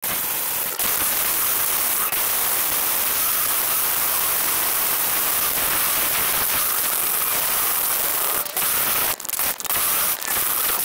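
Small RC car rolling fast over pavement, picked up by the camera riding on it: a steady, dense rushing and crackling noise of tyres and grit, with a few brief dropouts in the last two seconds.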